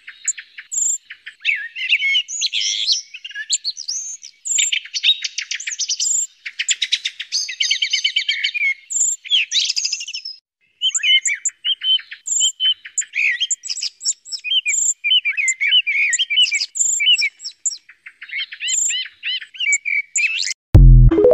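Calls of Eurasian blackbird and song thrush, a lure recording made for hunters' electronic bird callers: a busy stream of high chirps, chatters and fast repeated notes, with a short break about halfway. Near the end a sudden loud low thud cuts in.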